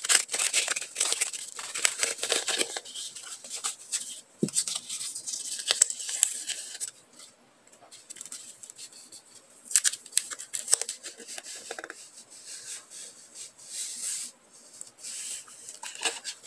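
Plastic packaging and rolls of clear printed decorative tape crinkling and rustling as they are handled and unrolled. Dense crackling comes in the first few seconds, followed by quieter scattered clicks and rustles.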